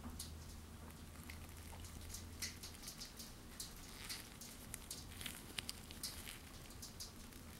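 Faint, irregular crinkling and ticking of gloved fingers handling and turning a metal ring. A low hum sits underneath for the first few seconds, then fades out.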